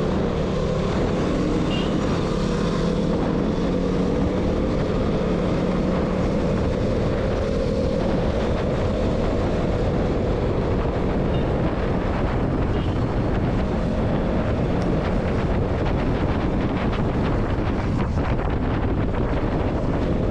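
200 cc single-cylinder motorcycle engine running at a steady road speed, its note holding steady, with heavy wind rushing over the microphone.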